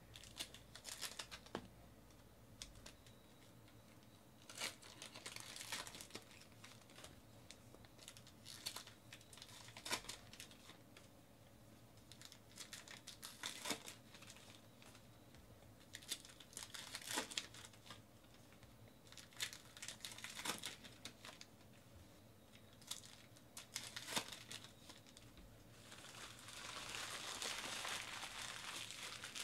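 Wrappers of 2018 Topps Archives baseball card packs crinkling and tearing as the packs are handled and ripped open, in short bursts every couple of seconds. A longer, steadier rustle comes near the end.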